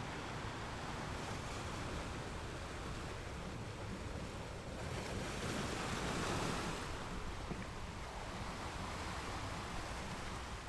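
Ocean surf on a beach: a steady wash of breaking waves, with one wave swelling louder about halfway through.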